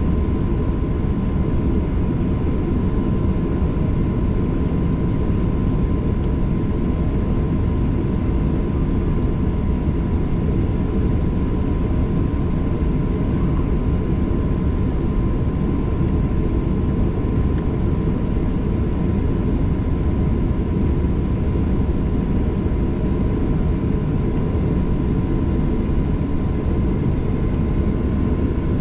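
Steady cabin noise inside a Boeing 737-800: its jet engines drone evenly over a low rumble, with a thin steady whine on top and no change in pitch or loudness.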